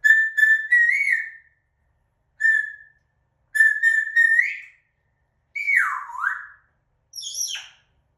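African grey parrot whistling: a run of short high whistles, several turning upward at the end. Then one longer whistle swoops down and back up, followed by a short squeaky call near the end.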